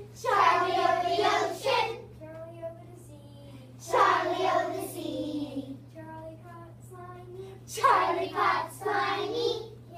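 A group of young children singing together in three loud bursts about four seconds apart, with softer singing in between.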